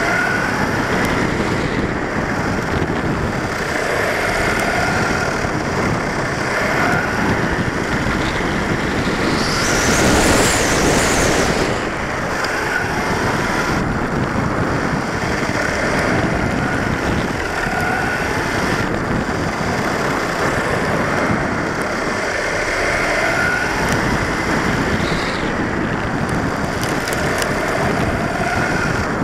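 Onboard sound of a 1/10-scale 4x4 RC short-course truck driving on asphalt: a steady rush of tyre and wind noise with the drivetrain's whine rising and falling as the throttle changes. The whine swells loudest and highest about ten seconds in.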